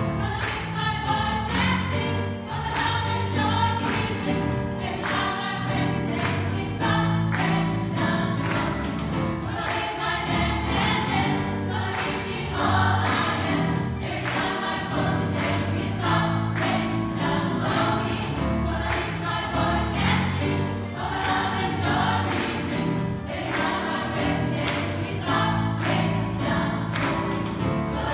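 Gospel choir singing in full harmony with live band accompaniment: keyboard, guitar and bass under the voices, with a steady beat.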